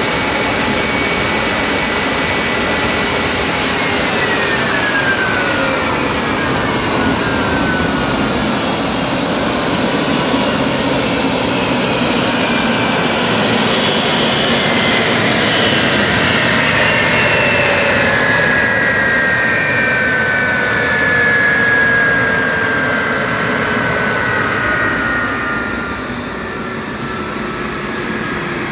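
Rolls-Royce/Snecma Olympus 593 turbojet from Concorde running on a test stand. Its whine holds steady at first, then falls steadily in pitch from about four seconds in as the engine spools down, and the exhaust rush grows quieter near the end.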